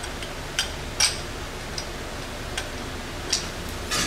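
Fork seal driver on a dirt bike fork tube, tapping a new oil seal down into the fork leg: a few light, irregular clicks, then a louder knock near the end.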